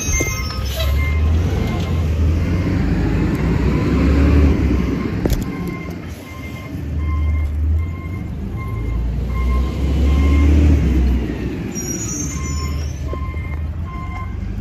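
Wind rumbling on a handheld phone's microphone while walking outdoors, the loudest sound throughout. Under it, a faint electronic beep repeats evenly for several seconds, then again near the end. There are brief high bird chirps at the start and about twelve seconds in.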